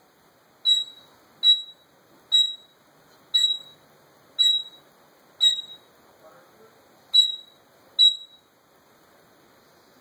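African grey parrot mimicking an electronic beep: eight short, high-pitched beeps, about one a second, with a longer pause after the sixth.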